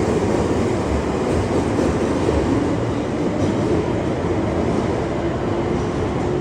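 London Underground 1973 Stock train departing along the platform: a steady, loud rumble of wheels on rail with a steady motor hum running over it.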